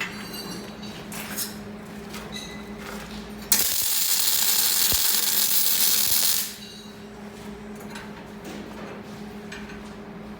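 A welding arc burning for about three seconds: a loud, even hiss that starts and cuts off suddenly. A steady low hum runs underneath, with a few light clicks.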